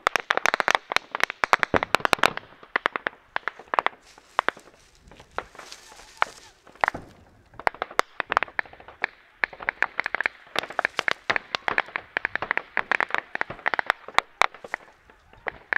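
Sustained small-arms gunfire: many sharp shots in rapid, irregular bursts, thinning out briefly in the middle before picking up again.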